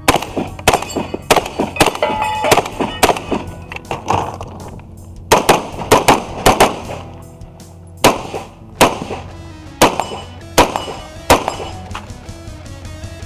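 Rapid gunshots from a long gun fired at steel targets, about twenty shots in quick strings with short pauses, over background music.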